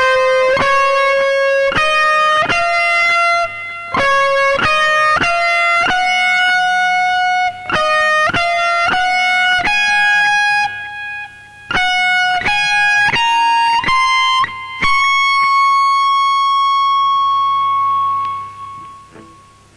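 Telecaster electric guitar playing a high single-note solo melody, picked note by note in short phrases with brief pauses. It ends on one long held high note that rings out and fades away near the end.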